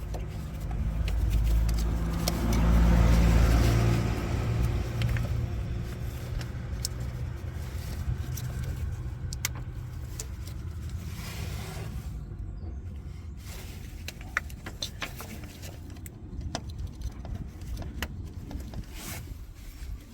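A vehicle's low rumble swells and fades over the first few seconds, then scattered small clicks and knocks as HT leads are pushed onto the spark plugs of a 1.2 petrol engine, each lead clicking as it clips over the plug tip.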